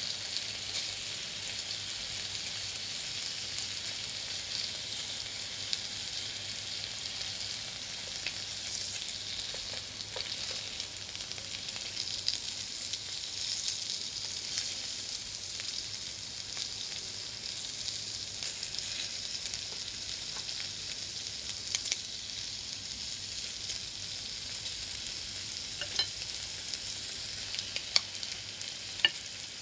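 Thin pork slices sizzling on a hot electric grill plate: a steady frying hiss, with a few sharp clicks near the end.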